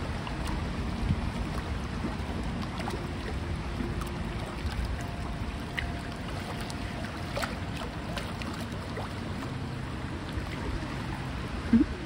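Steady wind noise buffeting the microphone over choppy lake water. There is a brief louder sound just before the end.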